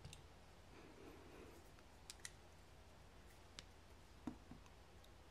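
A few faint, sharp clicks from a freshly reassembled folding knife being handled and opened, with a soft rustle about a second in; the loudest click comes about four seconds in.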